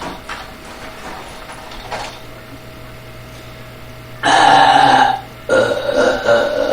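A person burping after drinking a large bottle of Dr Pepper, with gas from the soda coming up. The first seconds hold only a faint steady hum. About four seconds in comes one loud burp of nearly a second, then after a short pause a second long burp that breaks into several pulses and is still going at the end.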